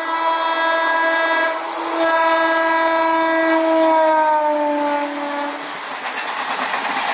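Indian Railways EMU train sounding its horn in two long blasts, the second falling in pitch as the train passes close by, then the rumble and clatter of its coaches rolling past.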